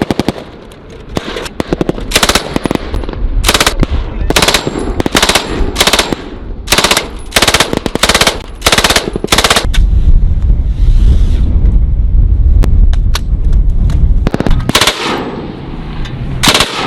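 Machine-gun fire in short, rapid bursts, one after another. About ten seconds in there is a denser stretch of about four seconds with a heavy low rumble and scattered shots, then the short bursts resume.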